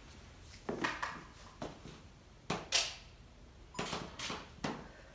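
A handful of short knocks and rustles at irregular intervals, about eight in all, with a quiet background between them.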